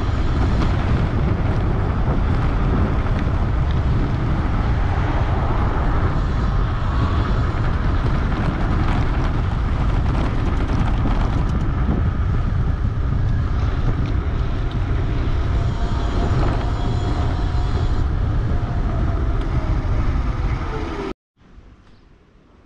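Wind rushing over the microphone while riding a 3000 W electric bike, with a faint motor whine that falls in pitch near the end. The sound cuts off abruptly about 21 seconds in, leaving near quiet.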